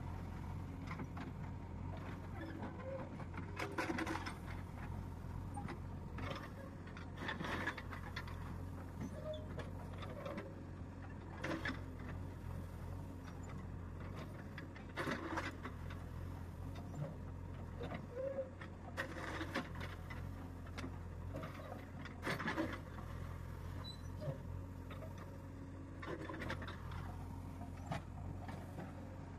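JCB 3DX Eco backhoe loader's diesel engine running steadily while the backhoe bucket scrapes into and dumps crushed stone, a short rattling rush of falling gravel about every three to four seconds.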